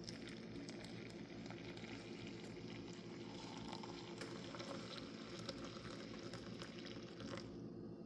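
Hot water being poured over ground coffee in a reusable pour-over coffee filter set on a cup: a faint, steady trickle of water.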